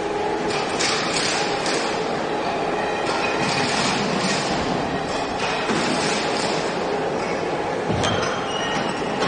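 Steady loud machinery noise in a concrete pole factory, with continuous metallic clinking and rattling.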